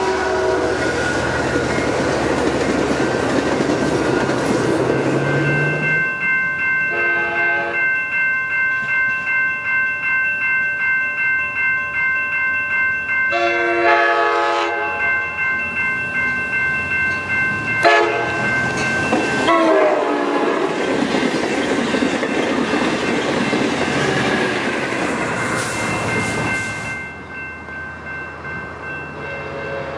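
Passenger train cars rolling past with clickety-clack, then a grade-crossing bell ringing steadily while an approaching Amtrak train sounds its horn several times, the last blast falling in pitch as the train passes. The train rumbles by and the sound drops away near the end.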